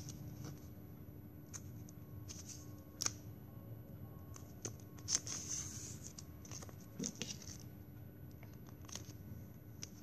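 Small clicks, taps and a short crinkling rustle of plastic drinking straws and double-sided tape being handled in craft work.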